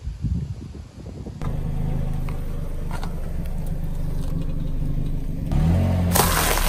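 Car engine running with a steady low hum as the car creeps forward on asphalt. About six seconds in, a tyre starts crushing a stack of plastic-wrapped crackers, a dense crackling crunch over the engine.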